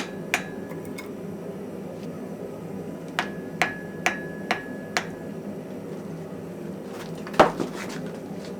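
Hand hammer striking metal on an anvil, each blow ringing with a clear tone: two blows at the start, a run of five about half a second apart, then one heavier blow near the end with a couple of lighter taps after it. A steady low rushing noise runs underneath.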